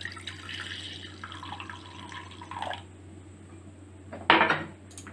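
Milk pouring from a glass into a ceramic bowl, a steady splashing trickle that stops about three seconds in. A short, louder knock follows a little after four seconds.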